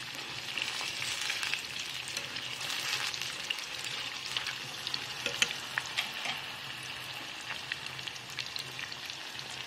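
Eggplant pieces deep-frying in a small pot of hot oil: a steady sizzling hiss full of crackles, with a few sharper pops about halfway through, as the pieces are turned with chopsticks.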